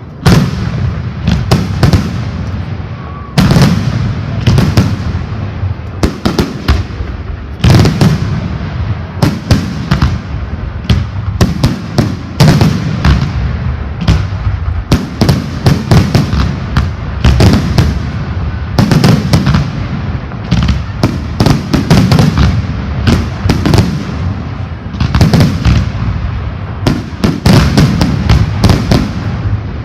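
Fireworks display: a dense, continuous barrage of shell bursts and bangs, several a second, with heavy booms.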